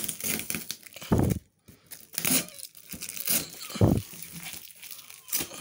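Clear plastic packing tape being peeled and ripped off a cardboard carton in several rasping tears, with two dull thumps from the box or phone being handled.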